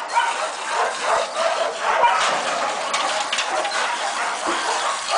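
Water from a garden hose spraying steadily onto a dog's wet coat and the concrete ground.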